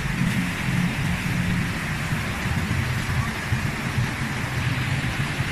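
Rhine Falls waterfall thundering into the plunge basin close by, a steady rushing of water with a strong low rumble.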